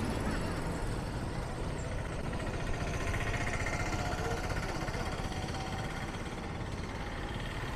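Steady road traffic noise from a moving bicycle taxi, with motorcycle, truck and three-wheeler engines running in the passing traffic.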